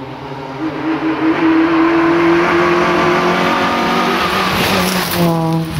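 Citroën C2 VTS rally car's four-cylinder engine under hard acceleration as it approaches. The revs climb and hold high, then drop sharply near the end as it reaches the camera, with a brief burst of hiss from the tyres as it passes.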